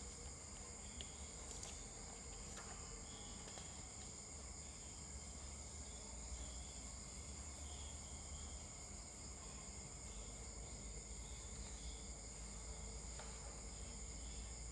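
Faint steady background noise: a constant high-pitched whine over a low hum, with nothing else happening.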